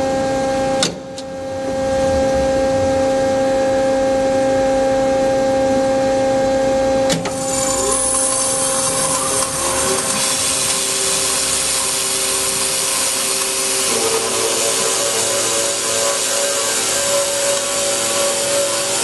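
Ajax CNC carbide-tipped circular cold saw running: a steady machine hum with a sharp click about a second in. About seven seconds in a knock is followed by a dense, high grinding hiss as the blade feeds down through a solid round metal bar.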